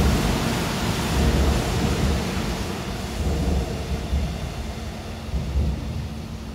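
Seoul Subway Line 4 electric train passing through the station at speed without stopping, heard through the platform screen doors: a loud rumble of wheels on rail with low thuds about once a second, fading as the last cars clear the platform.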